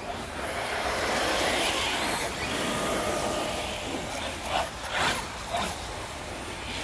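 Brushless electric 1/8-scale RC car driving over ground covered in dry leaves: tyres churning and scattering leaves, with a faint motor whine. It is loudest a second or two in, with a few short sharp rustles and knocks near the end.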